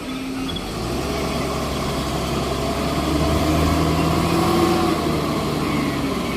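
A vehicle engine running steadily at idle. Its low hum comes in about a second in and holds.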